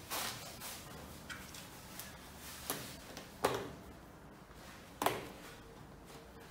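Plastic self-heating meal container being handled: four sharp clicks and knocks as the food tray is set into it and the plastic lid is fitted and pressed down, with faint rustling between.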